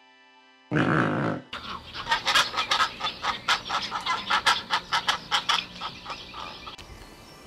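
Great white pelicans calling: one loud harsh call about a second in, then a rapid run of short clucking calls, several a second, that fades near the end.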